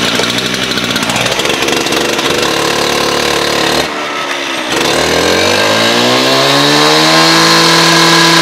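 Gas-powered two-stroke rotary cut-off saw with a 12-inch diamond blade, pull-started and running loud. About four seconds in it dips briefly, then is throttled up, its pitch climbing for a couple of seconds before holding steady at high speed.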